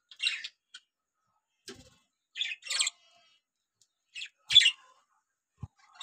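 Budgerigars chirping: about six short, high-pitched chirps, some in quick pairs, with pauses between them. The loudest comes about four and a half seconds in.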